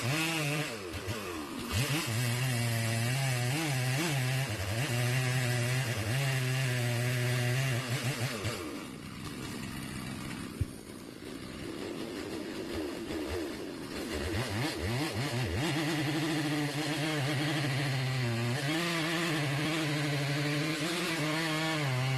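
Chainsaw with a 22-inch bar running at high speed, its pitch wavering as the revs rise and fall. About eight seconds in the engine note drops away to a lower, fainter sound for several seconds, with one sharp knock, then the saw comes back up to full speed.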